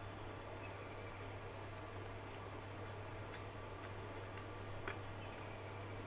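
Sparse small wet clicks of mouth sounds: chewing and lip smacks from eating, a few each second in the second half, over a steady low hum.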